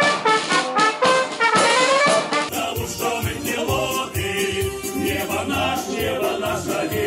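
Military brass band playing, with singing, with an abrupt switch to a different recording of the band about two and a half seconds in.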